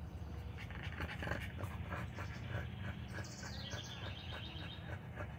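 A dog panting in a quick, even rhythm of short breaths.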